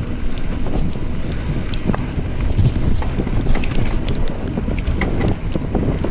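Wind buffeting the microphone over a steady low rumble from a mountain bike rolling along a trail, with scattered small clicks and rattles.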